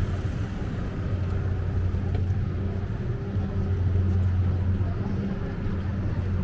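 Low, steady engine hum with a rumble underneath, easing off briefly between about two and three and a half seconds in.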